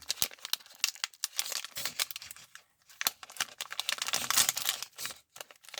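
Plastic wrapper of a baseball card pack being torn open and crinkled by hand, in a run of crackling rustles with a short pause midway.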